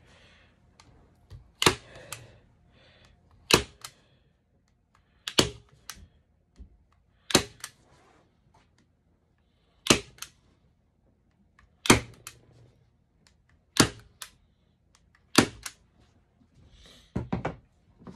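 Manual staple gun driving staples through a beaver pelt into a plywood board: eight sharp snaps, about one every two seconds, each followed closely by a lighter click. A quick clatter of knocks comes near the end.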